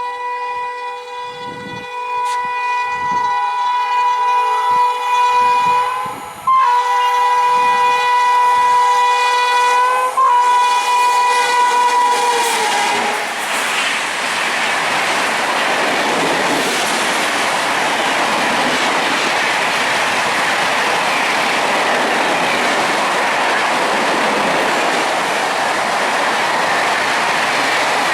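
Indian Railways train horn sounded in two long, steady blasts of about six seconds each, the second dipping in pitch as it ends. Then the passing train's wheels clatter over the rails with a steady loud rushing noise.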